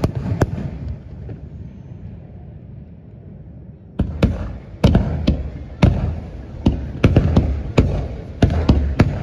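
Fireworks display going off: a couple of sharp bangs at the start, a quieter rumbling stretch, then about four seconds in a rapid run of loud bangs, one or two a second, with low rumble between them.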